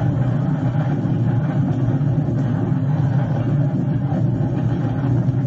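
Steady low rumble of engine and road noise from a police car driving at speed, heard from inside the car.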